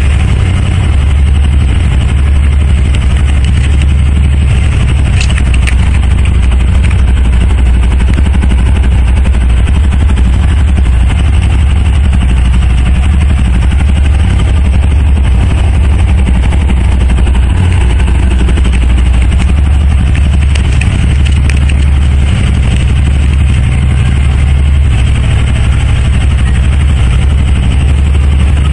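Small motorcycle engine idling steadily.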